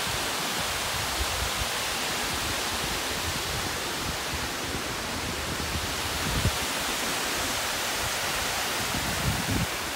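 Water rushing steadily over a river weir and its cascade, an even hiss without pause, with a brief low thump about six and a half seconds in.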